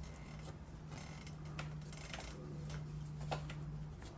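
Electric drill running steadily with a low hum, a 1/8-inch left-hand cobalt bit drilling into a broken hardened bolt, with scattered light ticks; the drill stops about four seconds in.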